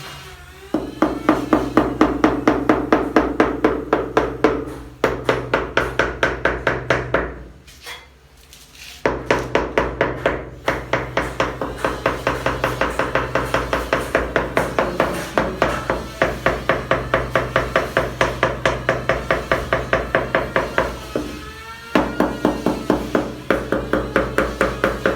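Background music with a quick steady beat of about four pulses a second, pausing briefly a few times.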